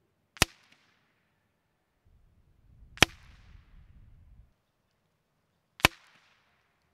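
Three shots from a suppressed Savage Mark II .22 rifle firing subsonic CCI standard-velocity rounds, each a sharp crack with a short fading tail, about two and a half seconds apart.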